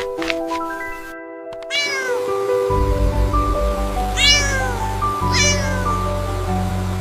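Cat meowing three times, each meow sliding down in pitch, over light background music whose bass comes in partway through.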